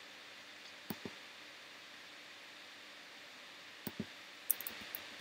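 Clicks from computer use at a desk: two quick pairs of clicks, then a few lighter ticks near the end, over a faint steady hiss.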